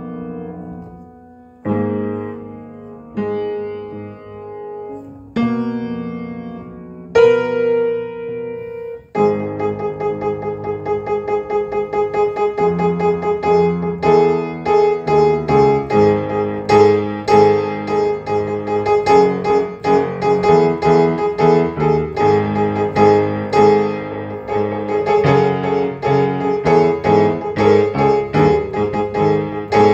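Upright piano played solo: a few slow chords, each struck and left to ring and fade, then from about nine seconds in a quicker, unbroken figure of repeated notes.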